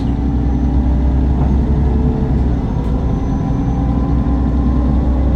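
Mercedes-Benz Citaro CNG city bus's natural-gas engine and ZF Ecomat automatic gearbox running steadily, heard on board: a strong low hum with a few steady whining tones above it.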